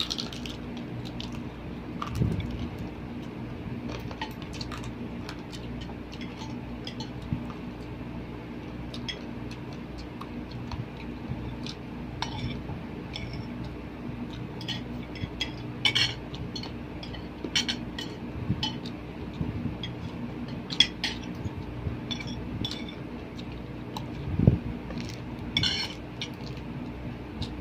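Spoon and fork clinking and scraping against plates and bowls while eating, in scattered sharp clinks with a couple of duller knocks on the table, over a steady low hum.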